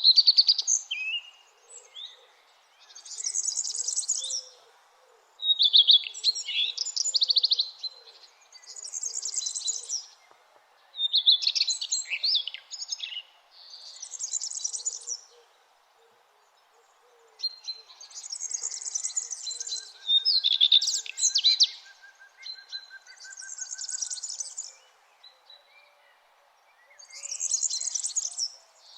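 Songbirds singing in the early morning: short song phrases every two to three seconds, high buzzy phrases alternating with lower, rapid trills, over a faint steady background hum.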